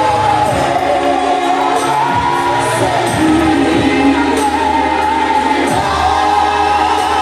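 Music: a choir singing in several voices, with held low bass notes underneath.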